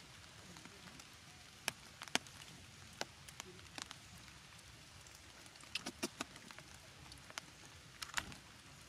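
Sparse water drips after rain: scattered sharp ticks and light pattering over a faint steady hiss, a few of them clustered about two and six seconds in.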